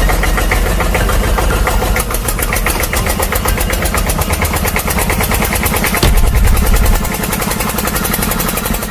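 Engine sound running steadily with a rapid, even chugging pulse and a heavy low rumble, louder for about a second around six seconds in.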